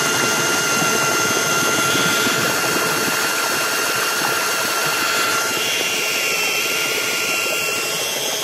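18 V cordless drill driving a boat propeller at full speed: a steady high electric-motor whine over the churning splash of the propeller in the water. The whine's tones shift and fade somewhat after about five seconds.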